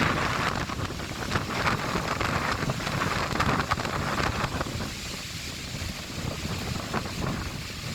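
Strong gusty wind buffeting the microphone, a rough rumbling roar that is loudest in the first half and eases somewhat in the second.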